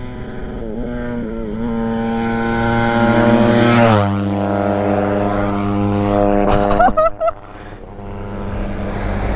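A motor vehicle's engine passes close by, growing louder as it approaches. At about four seconds in, its pitch drops sharply as it goes past, and then it fades away.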